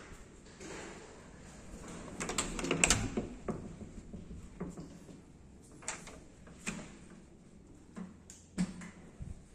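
A wooden door with a metal lever handle being opened: a quick run of latch clicks and knocks about two to three seconds in, the loudest part. A few single sharp clicks or taps follow in the second half.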